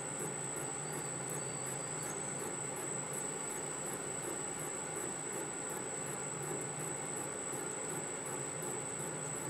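Metal lathe running steadily as a turning tool takes a light cut on the crankpin of a model engine crankshaft, which spins off-centre in a fixture. There is a constant high whine and a faint regular ticking about three or four times a second.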